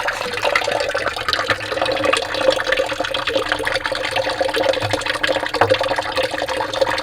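Rain falling steadily, a dense, even pattering of drops.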